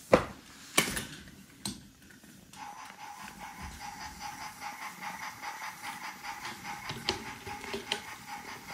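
Three sharp knocks of wooden toy pieces. Then, from about two and a half seconds in, the small electric motor of a battery-powered Brio toy train starts up and runs with a steady whine.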